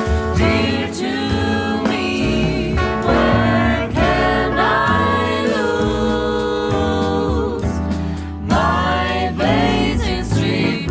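Jazz vocal group of four voices singing in harmony over a low bass line, as a recorded jazz song.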